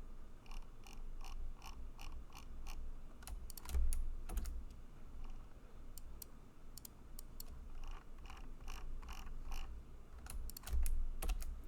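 Computer keyboard typing in bursts of quick key clicks, with a pause of a couple of seconds midway. A couple of low dull thuds come with the louder clusters, about four seconds in and near the end.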